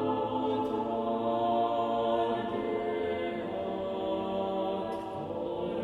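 Choir singing sacred music unaccompanied, in long held chords that move slowly from one to the next.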